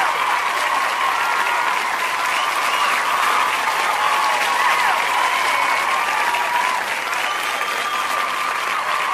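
A large theatre audience applauding steadily, with cheering voices over the clapping.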